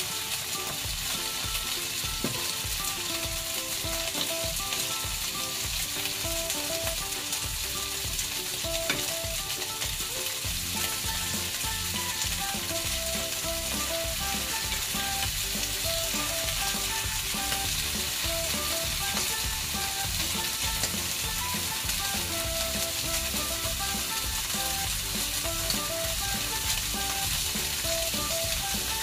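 Pork spare rib chunks sizzling steadily as they fry in oil in a hot pan, being turned with chopsticks. They are browning on high heat, the stage before they turn golden brown.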